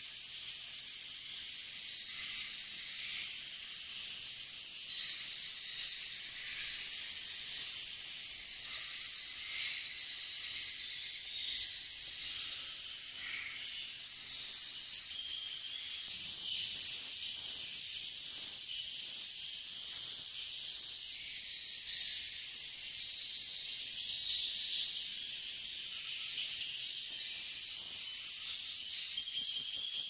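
Swiftlets chirping: a continuous stream of short, high twittering calls, many overlapping, repeating more than once a second at even spacing.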